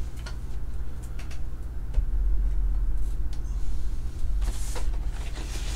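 Handling of graded and cased trading cards over a steady low rumble: a few light clicks as a plastic card holder is set down, then crinkling of a silver card wrapper being handled near the end.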